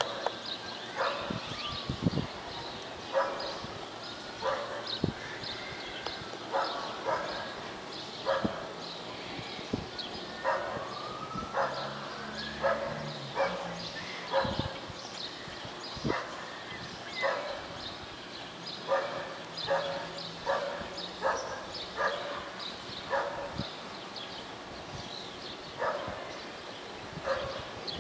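A dog barking over and over, in runs of several barks at a time.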